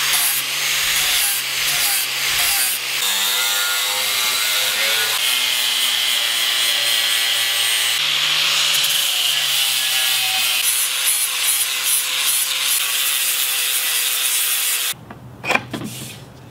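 Angle grinder fitted with a sanding disc taking material off a teak spear shaft: a steady motor whine under a loud grinding hiss of abrasive on wood. The pitch shifts at a few edits, and the sound cuts off about a second and a half before the end.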